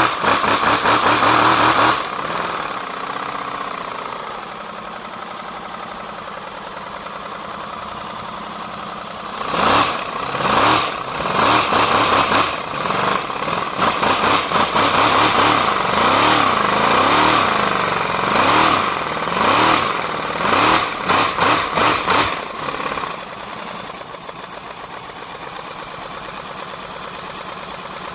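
3D-printed V4 compressed-air engine running with paper towels stuffed in its two exhausts as mufflers: a rapid stream of exhaust puffs. It runs loud at first, settles to a steadier, quieter run, then surges in speed up and down for about twelve seconds before settling back to a steady, quieter run near the end.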